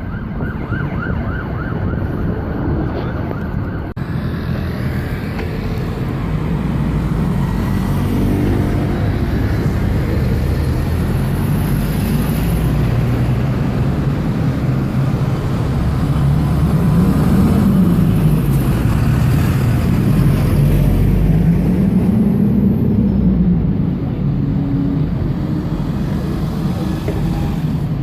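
Busy road traffic dominated by bus engines running and pulling away, their pitch rising and falling slowly, with an emergency-vehicle siren fading out in the first second or so.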